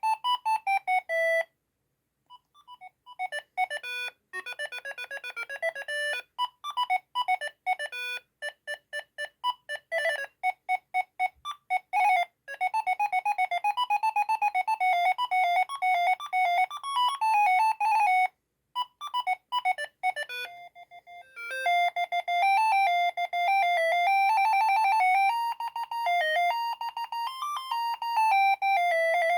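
Siemens ME45 mobile phone playing its built-in ringtones one after another: short electronic beeping melodies, with brief pauses where one tune ends and the next begins.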